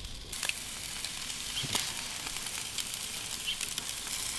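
Freshwater eel fillets sizzling on a wire grill over hot charcoal: a steady hiss with a few sharp crackles as the fish cooks.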